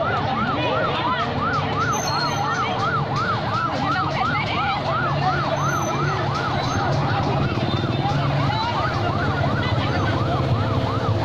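A siren wailing up and down, about two cycles a second, over a low steady engine hum and crowd chatter; the wail fades in the last few seconds.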